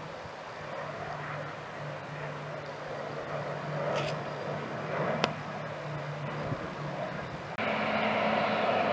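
Turboprop airliner on approach: a distant, steady propeller drone with two sharp clicks in the middle. Near the end it cuts abruptly to a louder, closer turboprop engine and propeller sound with a steady whine.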